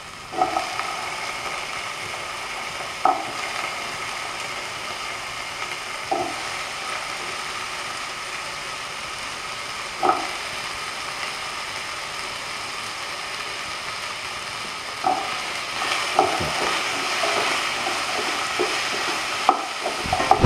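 Sliced potatoes frying in oil in a pan, a steady sizzle, while a spatula stirs them and knocks against the pan every few seconds, more often near the end.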